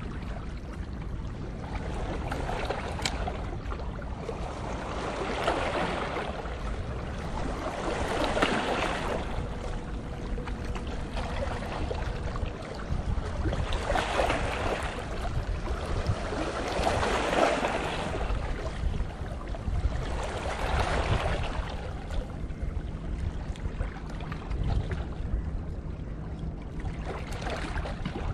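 Wind rumbling on the microphone while small waves wash against shoreline rocks, the wash swelling every three to four seconds.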